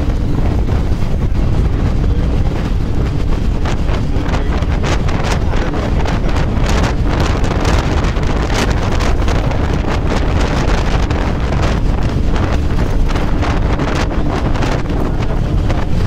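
Wind buffeting the microphone over the steady low rumble of a moving bus, with a faint steady engine hum and many short clicks throughout.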